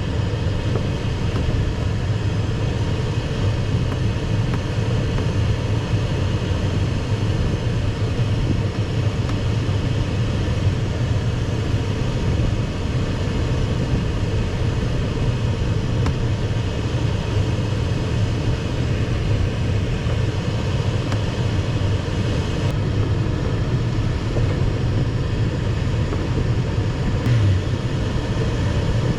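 Steady rush of airflow around an ASW 15 sailplane's cockpit in gliding flight, an even wind noise with no engine.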